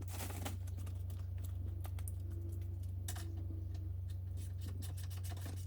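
Small scattered clicks and taps of a replacement plastic headlight unit being handled and tried into the front of a car, over a steady low hum.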